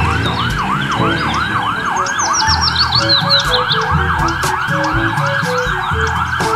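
Electronic emergency siren in a fast yelp. Its pitch sweeps up and down about three times a second without a break.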